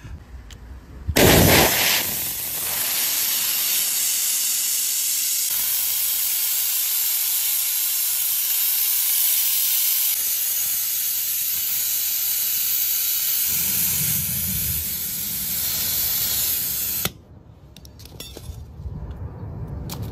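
Compressed air hissing steadily from a shop air hose clipped onto a truck tyre's inner-tube valve. It comes on with a loud burst about a second in and cuts off suddenly near the end.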